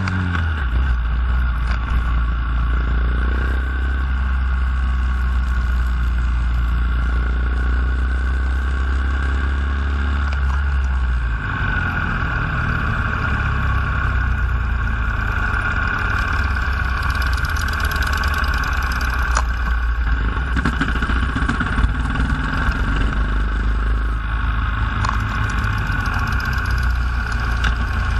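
Honda Grom motorcycles riding along in a group, engines running steadily under a continuous low rumble; the low rumble shifts about eleven seconds in.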